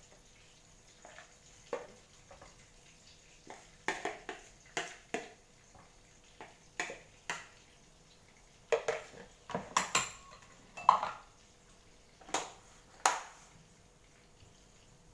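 A kitchen utensil clinking and knocking against a mixing bowl and a wok in an irregular series of sharp taps, with the loudest knocks about two thirds of the way through, as mashed potato is mixed and tipped into the wok.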